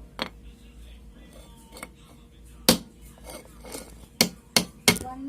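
Sharp metallic clinks and taps of hand tools striking and handling metal parts during drum brake work. There are about six strikes, the loudest midway, then three in quick succession near the end.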